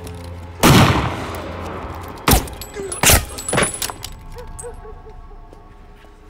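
Pistol shots: a loud shot under a second in with a ringing tail, then three more sharp shots over the next three seconds.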